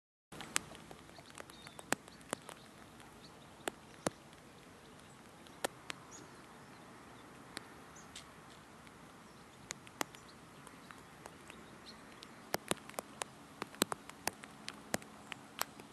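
Quiet outdoor ambience that starts a moment in after silence, with a steady low background and many sharp, irregular clicks, bunched together about twelve to fifteen seconds in. A few faint bird chirps sound high above.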